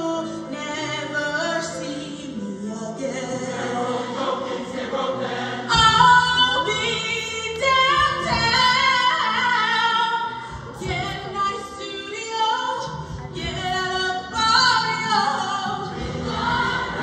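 High school show choir singing with its live backup band. The sound grows suddenly fuller and louder, with strong bass and beats, about six seconds in.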